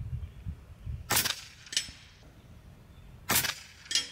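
Two shots from a .22 RAW HM1000X LRT PCP air rifle, a couple of seconds apart, each a sharp crack. Each shot is followed about half a second later by a fainter crack.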